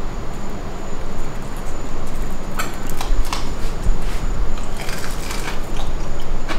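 Crisp-crusted breaded fried mashed-potato ball being bitten into and chewed: two short clusters of crunchy clicks, about two and a half seconds in and again about five seconds in, over a steady low hum.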